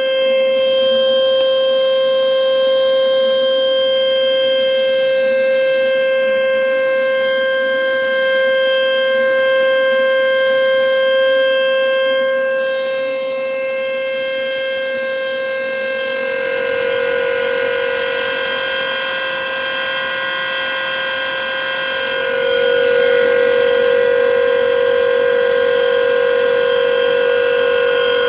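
A pot on the boil whistling: one steady, loud tone with overtones. The pitch drops a little about two-thirds of the way through, and again soon after.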